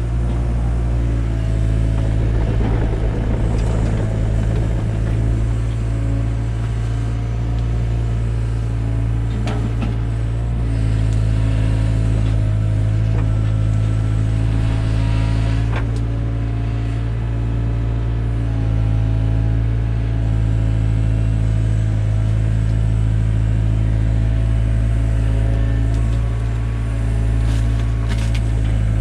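Takeuchi TB175 excavator's diesel engine running steadily under hydraulic load while digging, its note shifting slightly a couple of times, with a few short knocks.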